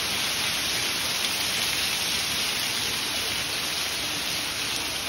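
Heavy downpour of rain, with water pouring off a roof edge onto the wet ground: a steady, even hiss.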